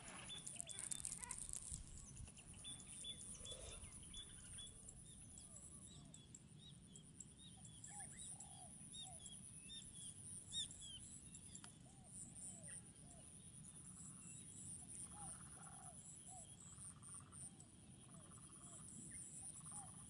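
Faint background birdsong: many short chirps and whistles from several small birds, some in quick little runs, over a low steady background noise.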